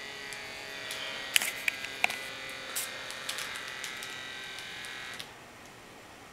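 Omron automatic blood pressure monitor's small air pump buzzing steadily as it inflates the arm cuff, with a few sharp clicks. The pump cuts off suddenly about five seconds in, leaving only a faint hiss.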